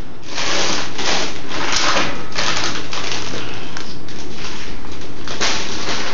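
Parrot working its beak at the top of its cage: a run of irregular scratchy, crunching bursts, several in the first three seconds and another near the end.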